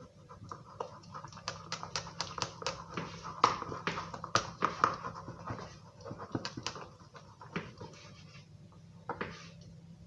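Spoon stirring thick dish soap in a bowl: rapid wet squelches and clicks of the spoon against the bowl, busiest in the first half and again briefly later on.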